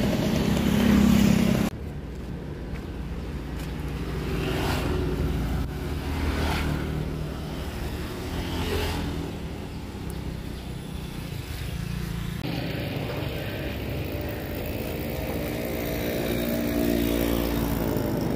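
Road traffic: motor vehicle engines running and passing. The sound changes abruptly twice, and a steady engine hum holds through the last few seconds.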